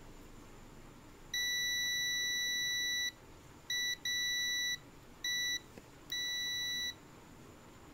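Digital multimeter's continuity buzzer beeping five times, one long steady beep then four shorter ones, as the probes touch SMD capacitors on an SSD circuit board. The beep signals a low-resistance path across a capacitor being checked for a short.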